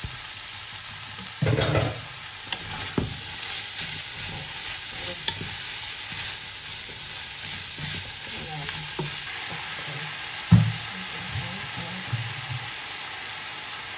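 Chicken, carrots and snow peas sizzling in a pot as a wooden spatula stirs and scrapes them, with scattered knocks against the pot. The loudest knocks come about a second and a half in and about ten and a half seconds in.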